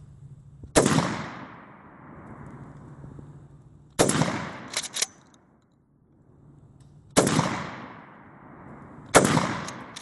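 Four 12-gauge shotgun shots from a DP-12 bullpup, each loud and sharp with a trailing echo, spaced a few seconds apart. Just after the second shot come two quick sharp clacks, fitting the pump being worked back and forward to cycle the next pair of shells.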